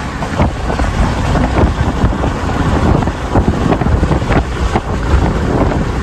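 Strong tornado wind buffeting the microphone: a loud, steady rumble with gusts and frequent crackling knocks.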